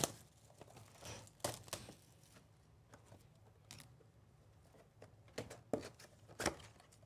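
Plastic shrink wrap being pulled off a trading-card box: faint, scattered crinkling and tearing crackles, a few in the first two seconds and another few near the end.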